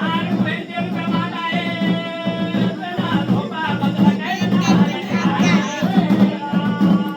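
Music: a singing voice over instruments and drums.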